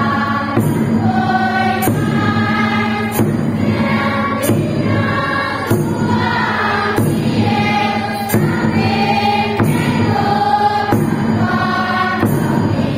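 Devotional prayer chant sung over a steady low drone, moving to a new held note every second or so.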